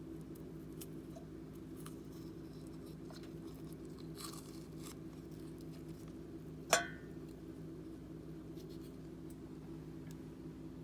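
Kitchen utensil working food in a bowl, mashing potatoes and eggs: scattered light clicks and a short scrape, then one sharp clink against the bowl with a brief ring about six and a half seconds in. A steady low hum runs underneath.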